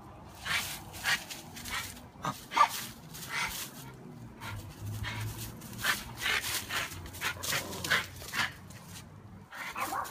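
Small dog making short excited barks, yips and whines in a quick irregular series while chasing bees, the loudest about two and a half seconds in.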